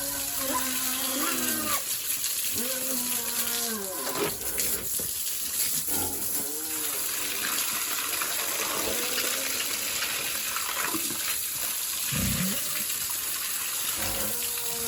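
Water spraying steadily from a hose while a pig pen is washed down. Several short pitched pig calls come in the first seven seconds.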